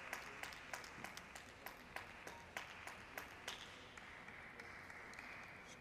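Scattered applause from a small audience, dying away: dense clapping at first thins to a few lone claps and fades.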